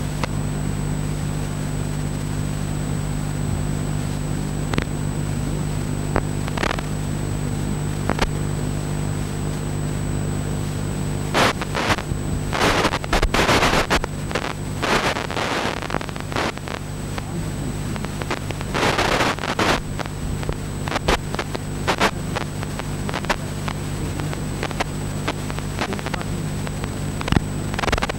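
Steady low electrical hum with a constant thin high whine, broken by scattered clicks. There are two spells of loud rustling noise, one about halfway through and another a few seconds later.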